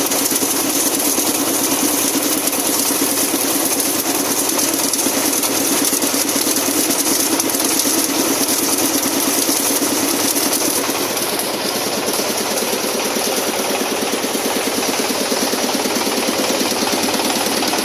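Plastic waste shredder machine running steadily, its motor and cutters making a loud, even mechanical clatter.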